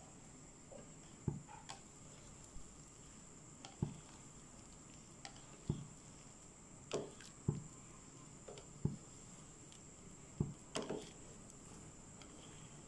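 Wooden spatula stirring pasta in boiling water in a metal pan, knocking against the pan about ten times at uneven intervals, over the faint bubbling of the water.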